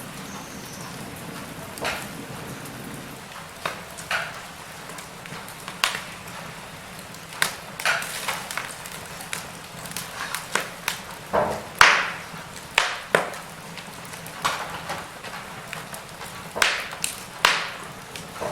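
Logs burning in a fireplace, crackling: irregular sharp pops and snaps over a low steady hiss, the loudest pop about two-thirds of the way through.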